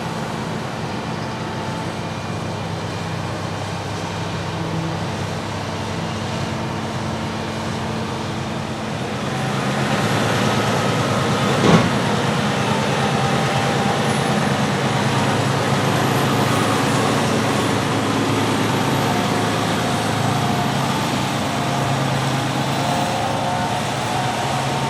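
Large diesel farm machinery running during a maize silage harvest: a steady engine drone that grows louder about nine to ten seconds in, with one sharp knock near the middle.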